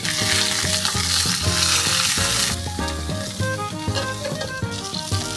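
Food sizzling as it fries in a hot pan, loud at first and cutting off sharply about two and a half seconds in. Background music with a steady beat plays underneath.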